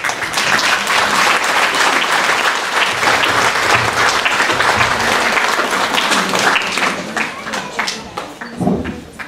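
Audience applauding, the clapping thinning out and dying away about eight seconds in.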